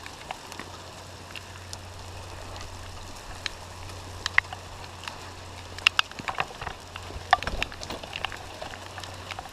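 Small hail falling with rain in a steady patter, with scattered sharp ticks of hailstones striking, more of them near the end, over a steady low hum.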